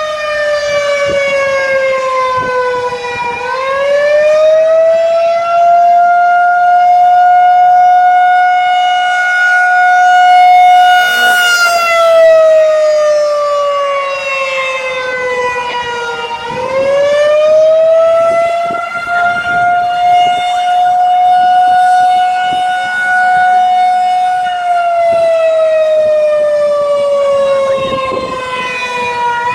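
Federal 2001-130 tornado siren on a 48-volt DC motor, winding up to a steady high wail, holding it for about eight seconds, then winding down partway for about five seconds before starting up again, twice. This eight-on, five-off cycle is the controller's attack signal.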